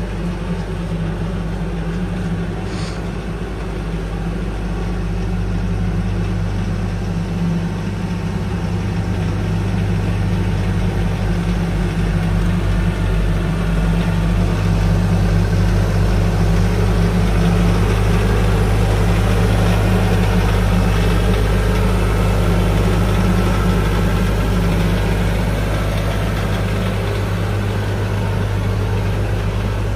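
A steady, low engine drone like an idling diesel, growing somewhat louder over the first several seconds and then holding even.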